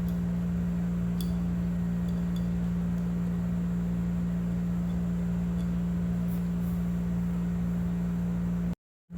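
Steady low electrical or mechanical hum with one strong tone, with a few faint light clicks. It cuts to silence for a moment near the end.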